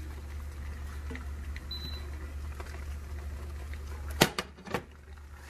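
Cooked chicken pieces being tipped from a glass bowl into a pan of creamy pasta: soft scattered clicks over a steady low hum. A little after four seconds in come two sharp knocks, and the hum drops away after them.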